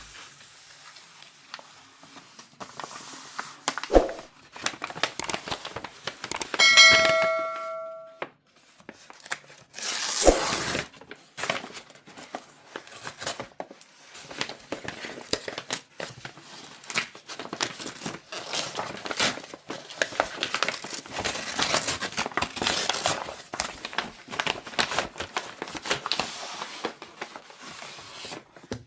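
iPhone 16e retail box being opened: the paper pull-tab seal tearing, with the packaging rustling and crinkling as it is handled, and a loud rasping tear about ten seconds in. A sharp knock about four seconds in and a short ringing tone about seven seconds in that fades out over about a second.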